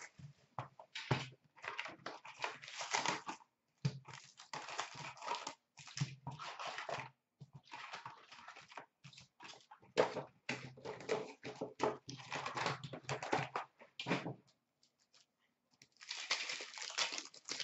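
Clear plastic shrink wrap and foil card packs crinkling and tearing as a sealed hockey card box is unwrapped and its packs taken out, in irregular crackly bursts, with a short pause before one last burst near the end.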